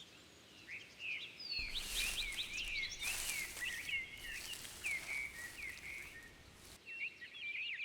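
Many birds chirping together: a dense stream of short, quick chirps and pitch slides, fairly faint.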